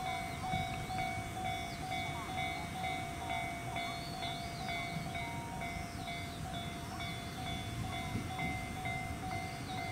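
Japanese railway level-crossing alarm ringing its repeating electronic bell, with birds chirping and a low rumble underneath from the approaching electric train.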